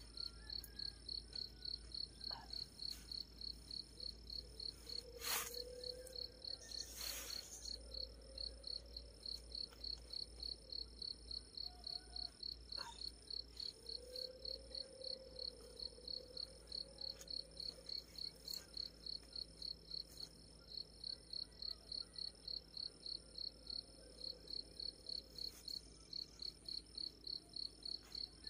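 An insect chirping in an even rhythm, about two to three chirps a second, over a steady high insect whine. A couple of sharp clicks and rustles come around five and seven seconds in, the loudest at about five seconds.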